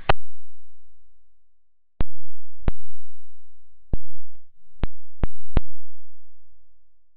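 Film canister rockets popping off one after another: about seven sharp pops spread unevenly over several seconds. Each pop is the carbon dioxide pressure inside a canister blowing its lid off.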